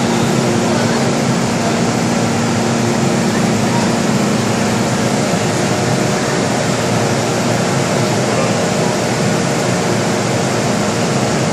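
Steady rushing noise from the ventilation and air conditioning of an MTR M-Train car standing at a platform, with a low hum that fades out about halfway through.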